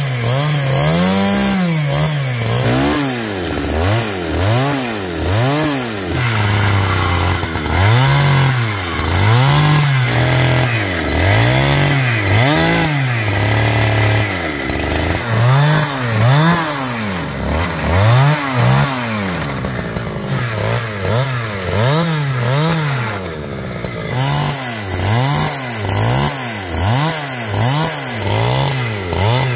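Two-stroke chainsaw cutting wood, its engine speed rising and falling over and over, about once every second or two.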